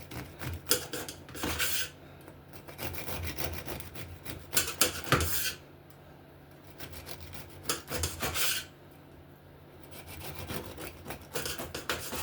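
Knife sawing back and forth through once-baked biscotti logs, slice after slice: a rasping, crunching scrape in runs of quick strokes with short pauses between slices.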